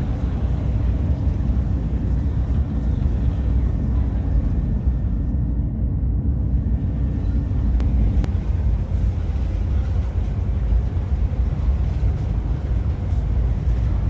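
Cabin noise of the Whoosh high-speed train running at speed: a steady low rumble with little in the high end.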